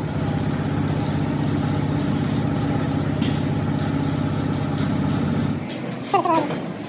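Heavy truck engine idling steadily, then cutting off suddenly near the end, followed by a few short squeaks and light clicks.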